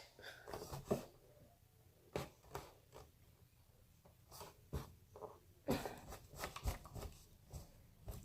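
Irregular light taps, clicks and rustles of small objects being handled on a tabletop, in clusters about half a second in and again around six seconds in.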